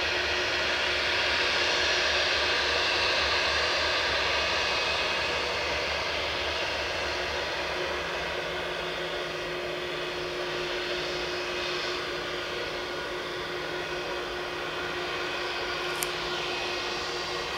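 IAE V2500 jet engines of an Airbus A320 running with a steady jet roar and a held whine. The sound is loudest about two seconds in, then slowly fades. There is a single sharp click near the end.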